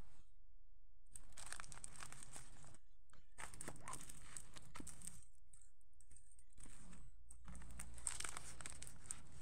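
Crinkling and rustling of a diamond painting canvas's plastic-filmed sheet as hands press and smooth it flat, in about four separate bursts.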